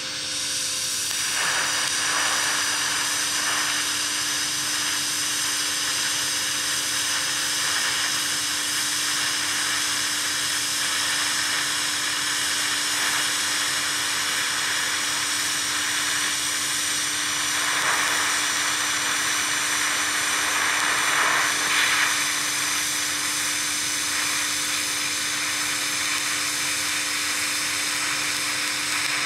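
TIG welding arc from a Vevor 210A TIG welder: a steady hiss with a thin high whine and a low hum underneath. It dips briefly at the very start, then runs evenly, swelling slightly around eighteen and twenty-two seconds in.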